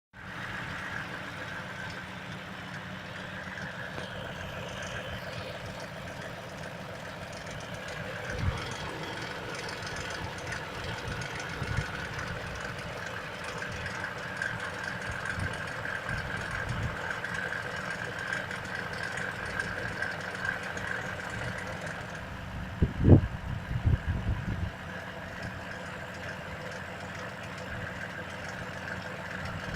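Vehicle engine running steadily at idle with a knock in the engine. A few louder low thumps stand out, the loudest about three-quarters of the way through.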